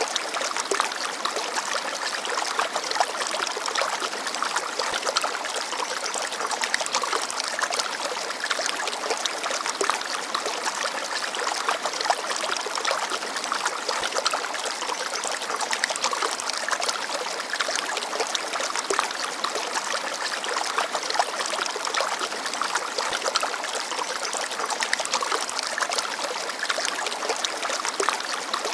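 Small forest stream babbling and trickling over stones, a steady splashing with many small drips and gurgles.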